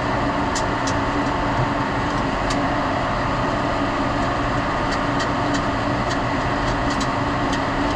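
Steady industrial machinery hum with a held tone, typical of a running pressroom. Scattered light clicks come from cable connectors being handled at the motor drive cabinet.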